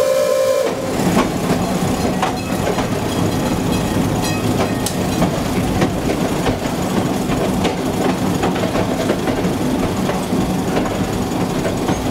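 Replica Model T Ford railcar running along the track, heard from its cab: a steady engine hum with scattered clicks and knocks from the wheels over rail joints and points. A brief high note sounds at the very start.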